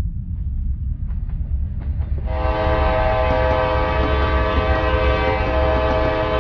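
Diesel locomotive approaching with a low rumble and a few clicks of wheels on rail joints. About two seconds in its air horn starts a long, steady multi-note chord, which becomes the loudest sound.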